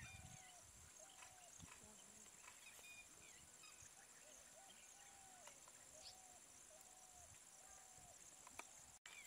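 Faint wild outdoor ambience: a steady high insect drone, with a short low call repeated over and over, pausing for a couple of seconds in the middle, and scattered high chirps.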